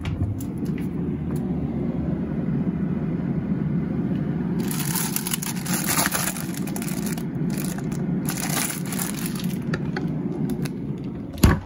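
Plastic bag rustling and crinkling as it is pulled out of a freezer compartment, over a steady low rumble. A sharp knock comes near the end.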